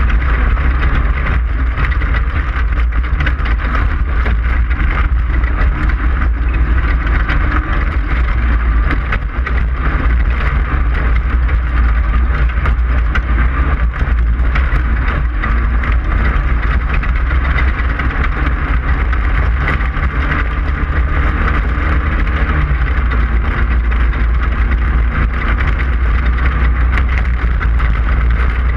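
Class 5/1600 race car's air-cooled VW flat-four engine running steadily under way, with a constant rushing noise over its low drone.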